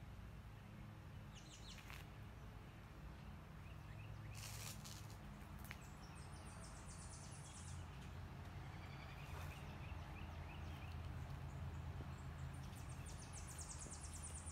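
Faint birdsong: scattered chirps and, twice, a rapid high trill, over a steady low rumble.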